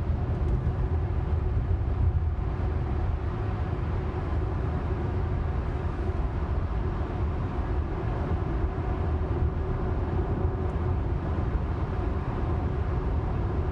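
Steady road and tyre noise heard inside a Tesla's cabin while it cruises at highway speed, about 59 mph.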